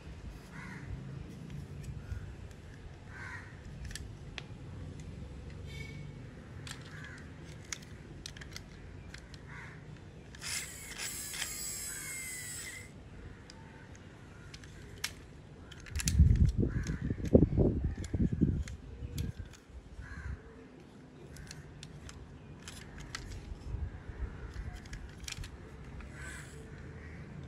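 Small plastic toy trucks being handled: scattered clicks and rattles of plastic parts, a rasping rattle lasting about two seconds about ten seconds in, and a run of dull bumps a few seconds later as the trucks are moved and set down.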